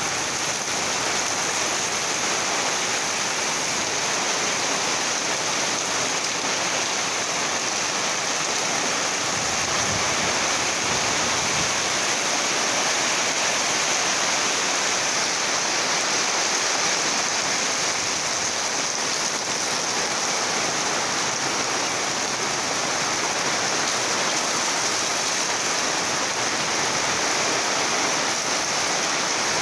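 Heavy storm rain pouring down steadily on the water and the docks, a dense, even hiss.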